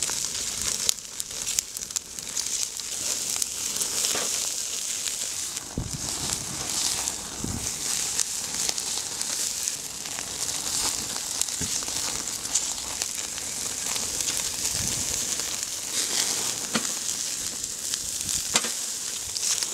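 Mutton sizzling on a wood-fired grill as it is basted with brown butter: a steady high hiss with frequent crackles from the fire and a few louder pops.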